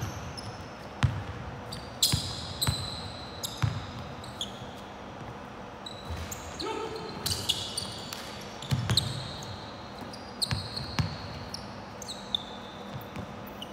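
A basketball bouncing on a hardwood court, irregular thuds as it is dribbled and passed, with sneakers squeaking in short high squeals on the floor between them.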